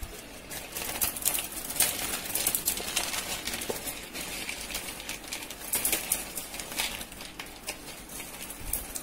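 Crisp deep-fried noodles crackling and snapping as a hand crushes them in a bowl, in irregular bursts.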